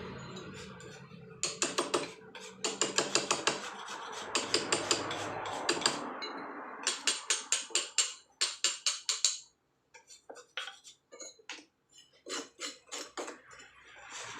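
Hand hammer tapping a chisel into paras jogja stone, carving by hand: runs of quick, sharp strikes at about five a second, each run lasting a second or two, turning to fainter, sparser taps in the last few seconds.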